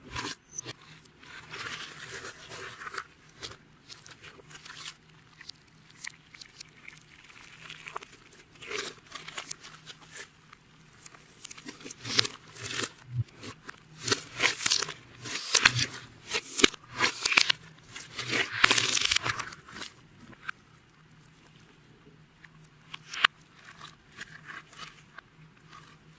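Clear slime being worked by hand, with runs of crackling, clicking and squishing that grow denser and louder in the middle, then thin out toward the end.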